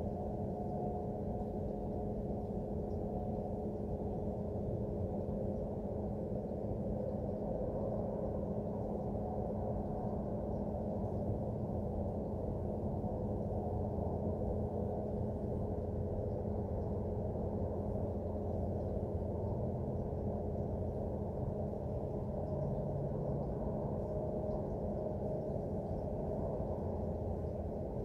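Industrial plant equipment giving off a steady, engine-like roar with several steady humming tones in it, which the uploader takes for failing equipment.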